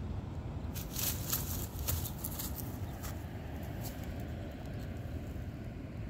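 Low rumbling wind noise on the phone's microphone, with a cluster of sharp crackles about one to three seconds in.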